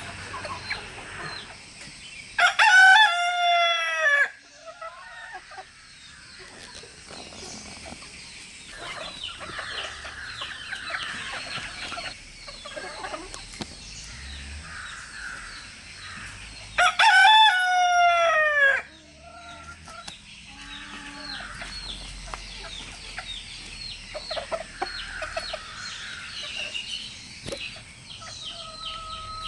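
A rooster crowing twice, two loud cock-a-doodle-doos each about two seconds long and falling in pitch at the end, some fourteen seconds apart. Chickens cluck softly in between.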